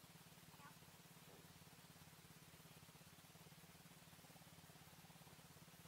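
Faint, steady idle of an ATV engine, a low, evenly pulsing hum; otherwise near silence.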